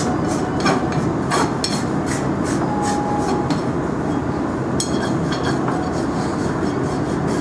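Farrier's hoof rasp drawn back and forth across a horse's hoof in repeated scraping strokes, about two or three a second, trimming and levelling the hoof during shoeing. The strokes thin out about halfway through, with a few more near five seconds.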